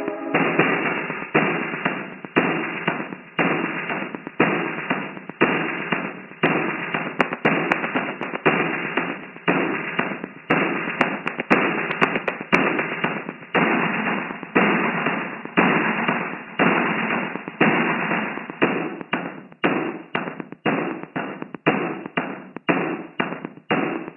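Industrial music built from rhythmic bursts of harsh noise, each striking sharply and dying away, a little more than one a second, quickening in the last few seconds.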